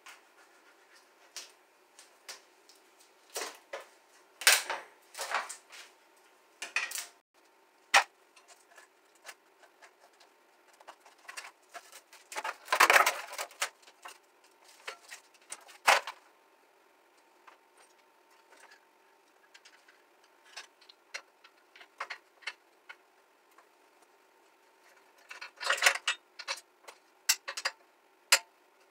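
Hands taking apart a moped's rear bodywork. Scattered clicks, clinks and rattles of small metal parts and plastic panels are heard, with the busiest, loudest clattering a little before halfway and another flurry near the end.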